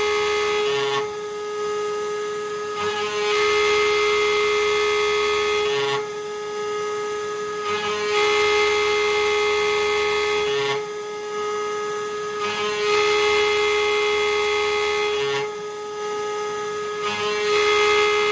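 Desktop CNC router (Genmitsu 3030 ProVer Max) milling aluminum: a steady high spindle whine under the sound of the end mill cutting metal. The cutting swells and eases in regular passes about every four to five seconds.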